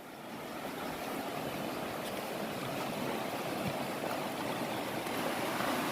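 Flowing stream water: a steady rushing noise that grows gradually louder.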